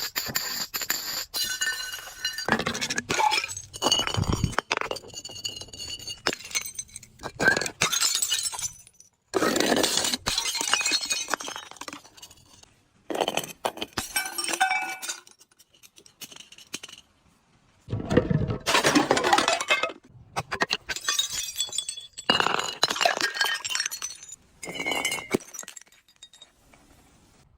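Glass bottles breaking and crunching, with shards clinking and ringing, in a series of bursts separated by short pauses.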